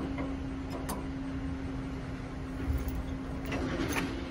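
Metal clinks and clicks from a trailer coupler and its safety chains being handled on a hitch ball mount: one click about a second in, then several quick clinks near the end. A steady low hum runs underneath.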